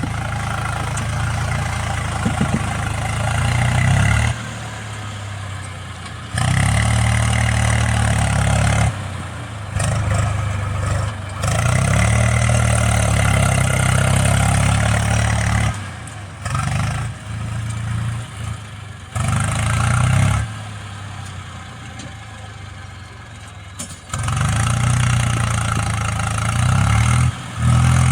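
Heavy diesel engines of a backhoe loader and farm tractors running and revving up and down. The sound jumps abruptly between louder and quieter stretches every few seconds.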